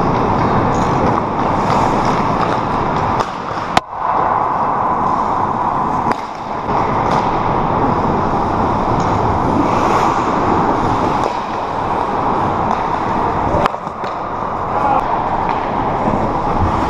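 Ice hockey rink during a pickup game: a steady rushing noise of skating and play on the ice, broken twice by a sharp clack, about four seconds in and again near fourteen seconds.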